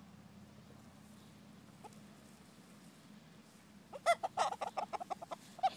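Chickens clucking as they feed, in a quick run of short calls that starts about four seconds in.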